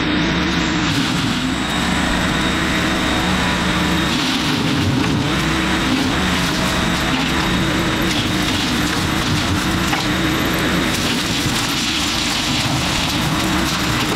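Tractor engine running under load, driving a Baumalight CP560 rotary brush mower through its PTO as the spinning blades cut through brush and saplings. The sound is a loud, steady mechanical din.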